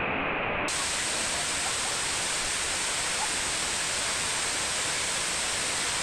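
A waterfall cascading down several rock tiers into a pool: a steady rushing hiss, turning brighter just under a second in.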